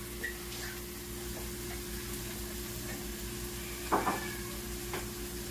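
Minced garlic, shallots, onions and ginger sizzling in a wok on high heat, over a steady low hum. About four seconds in the spoon knocks briefly against the wok, and there is a fainter click a second later.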